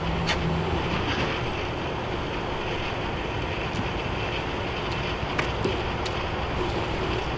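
Steady rushing noise, like wind on the microphone, with a few faint clicks.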